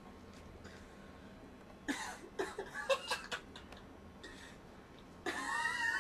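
People laughing in short bursts: a cluster of chuckles about two seconds in, and a louder laugh near the end.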